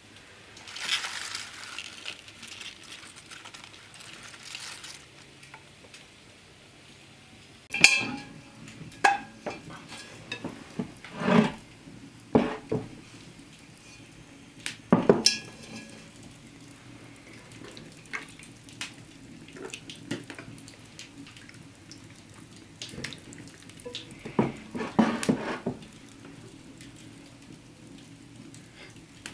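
Kitchen handling sounds: earthenware bowls and an iron pail knocked and set down in a series of separate clatters, with water splashing.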